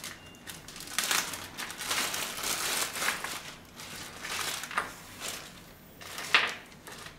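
Clear plastic packaging bag crinkling and rustling in irregular bursts as the cables inside are handled and pulled out, with a sharper crackle about six seconds in.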